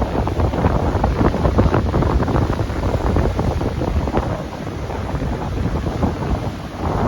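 Strong wind buffeting the microphone, with heavy surf beneath it. The gusts ease somewhat past the middle and pick up again near the end.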